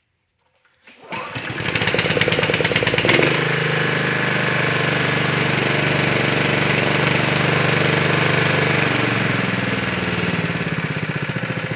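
Honda GX160 single-cylinder four-stroke engine starting about a second in, running faster for a couple of seconds, then settling to a steady lower speed. It is running on its freshly cleaned and reassembled carburetor.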